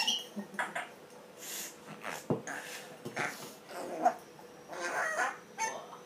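African grey parrot making short squawks and hissing noises, with a sharp click about two seconds in.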